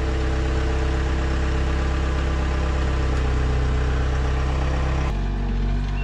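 ASV RT-75 Posi-Track compact track loader's diesel engine running steadily as the machine backs up. About five seconds in the sound changes abruptly to a deeper engine hum.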